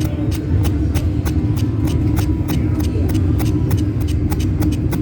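Buffalo Link slot machine's bonus-round sound: a loud, steady low rumble with rapid, irregular sharp clicks over it.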